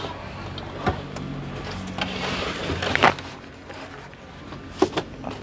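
Handling noise as a CRT television set is moved and turned by hand: a few knocks and clatters, the loudest about three seconds in and a quick pair near the end, with a scraping rustle between them.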